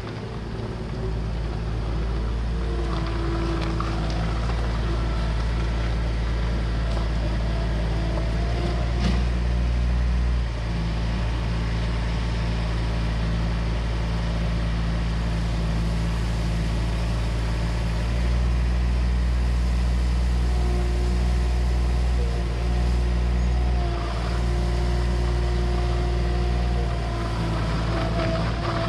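Bobcat skid-steer loader's diesel engine running, its note shifting as it drives up and lifts its bucket over the wall. A thin whining tone joins the engine about two-thirds of the way through.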